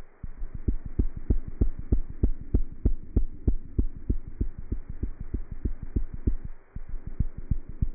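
A cat's heartbeat heard through a stethoscope: rapid, regular low thumps, about three a second with softer beats between them, over a faint steady hum. The beats briefly fade about six and a half seconds in, then carry on.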